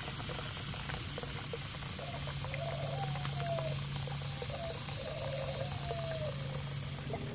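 Water from a garden hose spray nozzle pouring steadily into a plastic tub that is already full of water, splashing and bubbling at the surface.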